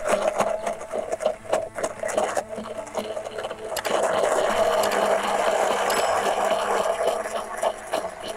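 Immersion blender whirring in a tall plastic beaker, puréeing pomegranate seeds into a marinade. It is choppy and clicking at first, then runs steadily and louder from about four seconds in. Really loud.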